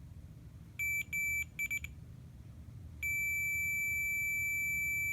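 Digital multimeter's continuity beeper sounding a high, steady tone as the test leads touch. There are four short, broken beeps in the first two seconds, then a continuous beep from about three seconds in: the leads are making a closed circuit.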